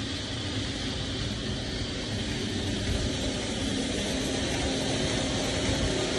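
Sawmill machinery running with a steady, even mechanical noise and a low hum.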